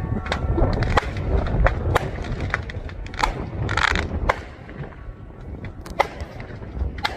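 Fireworks going off inside a car: irregular sharp cracks and pops, with a short hissing burst about four seconds in, over a steady low rumble.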